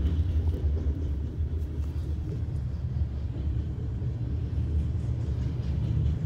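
Steady low rumble of a Herzog ballast train's hopper cars rolling past a grade crossing, muffled as heard from inside a car.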